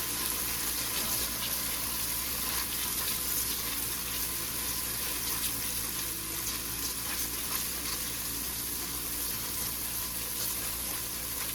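Onions and curry paste frying in hot oil in a pan: a steady sizzle with fine crackles.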